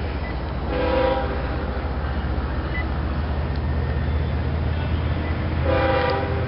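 Air horn of CSX ES44AC locomotive 844 on an approaching train, sounding two short blasts: one about a second in and another near the end. A low steady rumble runs underneath.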